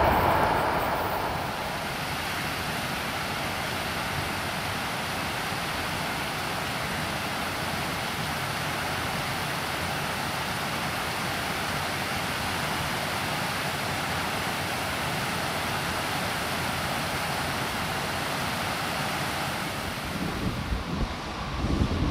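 Freight wagons rolling away and fading over the first second or two, then a steady, even rushing noise with no rhythm or tone. Near the end an uneven low rumble sets in.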